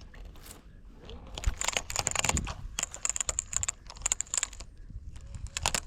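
Fishing reel clicking in fast, uneven runs as it is worked, sounding from about a second and a half in and again briefly near the end. The reel is malfunctioning.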